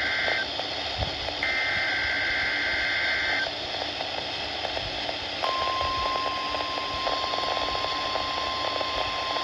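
NOAA Weather Radio receiver sounding the SAME digital header of a weekly test: two high, raspy data-tone bursts about a second apart, the first ending just after the start. About two seconds later the steady single-pitch 1050 Hz warning alarm tone comes on and holds, all over a constant radio hiss.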